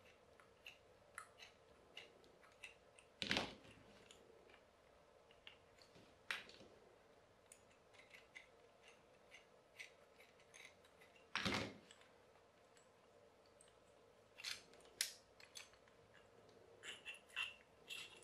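Faint small clicks and scrapes of a screwdriver working at the metal and plastic parts of a small hand-blender motor during disassembly, with two louder knocks about three seconds in and again about two-thirds of the way through, and a quick run of clicks near the end as the motor comes apart.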